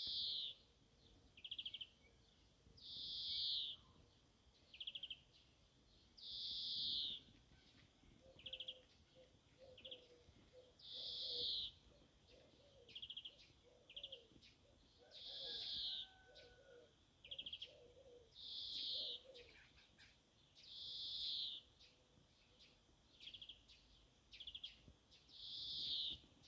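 Bird calls: a harsh, scratchy call about a second long repeats roughly every four seconds, with short rapid trills between them. Fainter low notes come in through the middle.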